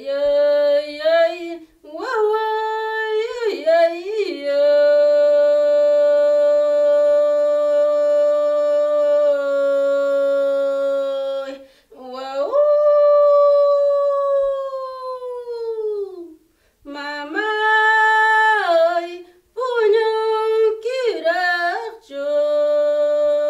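A woman sings an Andean Quechua song unaccompanied. She moves from wavering, ornamented turns into a long held note of about seven seconds, then a note that slides down in pitch, then more short ornamented phrases near the end.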